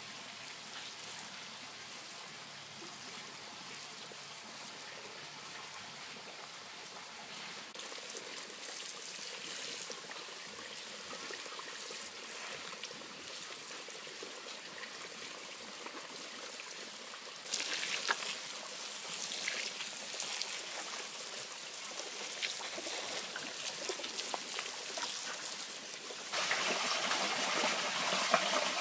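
Running water trickling steadily. It gets louder in sudden steps about 8, 17 and 26 seconds in.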